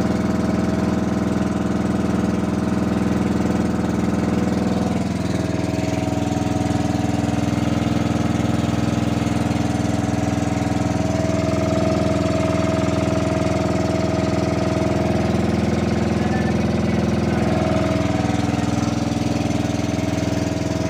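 Small engine of a motorized outrigger boat running steadily, its note shifting slightly about five seconds in and again later.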